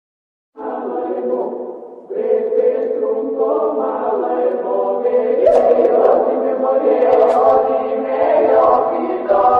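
Music ringtone built on a choir-like vocal chant, starting about half a second in, fading briefly near two seconds, then coming back in and holding on steadily.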